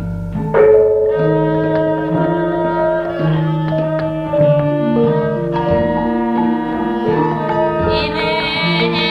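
Gamelan-style music: struck metallophone notes ringing one after another over hand-drum beats. A high wavering voice joins near the end.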